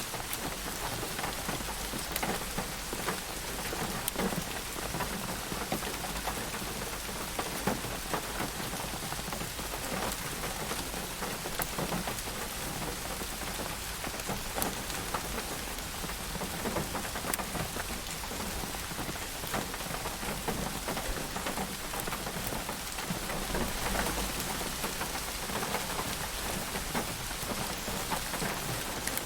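Steady rain falling, an even hiss with many individual drops ticking sharply on a surface.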